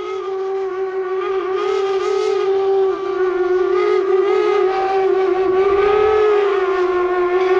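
Steam whistle of a 4-4-0 steam locomotive blowing one long, steady blast, swelling in loudness over the first few seconds with a slight waver in pitch.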